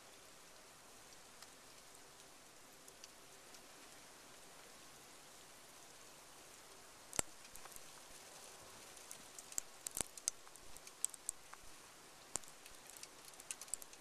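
Blizzard snow ticking and pattering against surfaces near the microphone over a faint steady hiss; the sharp little ticks grow frequent from about halfway through, with one louder click just after the halfway point.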